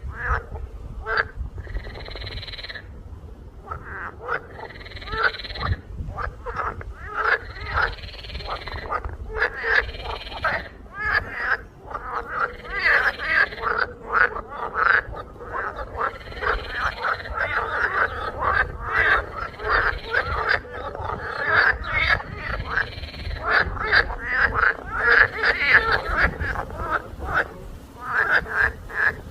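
Frogs croaking in a chorus: many short, rapidly repeated calls overlapping without a break.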